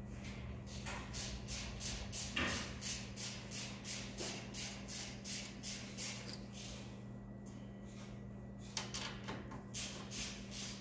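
Hand ratchet clicking, about three clicks a second, as the nut is tightened down on the tie rod end's stud at the spindle, with a pause of a second or two late on. A steady low hum runs underneath.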